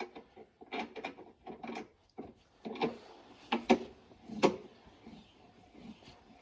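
Irregular metal clanks and scrapes from working a car's scissor jack and its crank handle to lower the car, with the loudest knocks a little past the middle.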